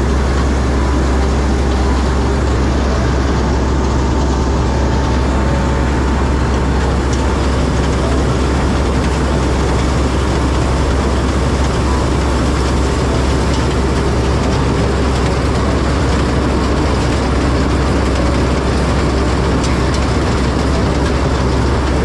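Rice combine harvester running steadily as it cuts standing paddy: a constant low engine hum under an even mechanical rush.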